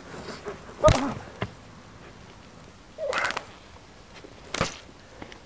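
A person's short strained cries while struggling on leaf litter, with a loud thump and falling cry about a second in, another brief wavering cry around three seconds, and a sharp knock near the end.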